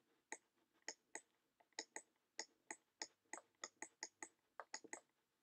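Faint, irregular clicking, about three clicks a second, from a pointing device as pinyin is hand-written onto a computer slide.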